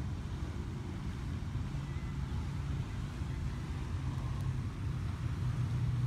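Steady low rumble of outdoor background noise, with no distinct event standing out.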